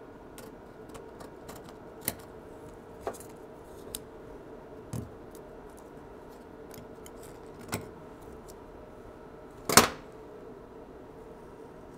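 Scissors snipping a paper template: a scattered series of small sharp clicks and cuts, with one much louder clack about ten seconds in.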